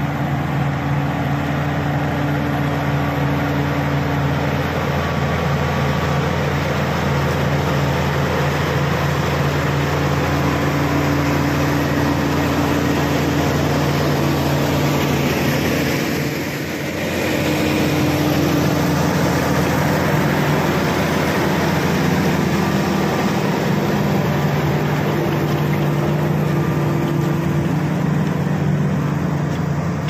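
Shantui SD16 crawler bulldozer's diesel engine running steadily while the dozer works soil, with a brief dip about halfway through.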